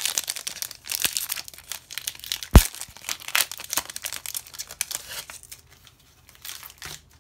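Foil wrapper of a Pokémon Chilling Reign booster pack crinkling as it is handled and torn open, with one sharp crack about two and a half seconds in. The crinkling fades out after about five and a half seconds.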